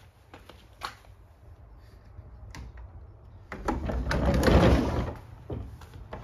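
Wooden sliding front door being slid open along its track, one loud scraping slide lasting about a second and a half, starting about three and a half seconds in. A few light clicks and knocks come before it.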